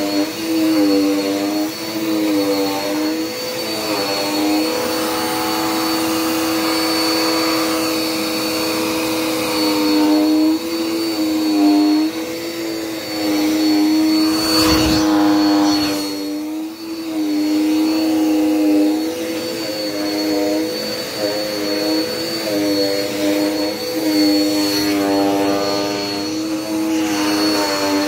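Dirt Devil Power Max Pet upright vacuum cleaner running steadily, its motor whine wavering slightly in pitch as it is pushed back and forth over the floor. A brief knock comes about halfway through.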